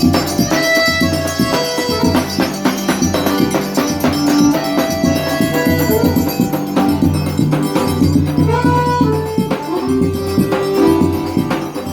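Instrumental forró music: held melodic notes over a steady bass line, with a busy percussion beat and a shaker-like rattle.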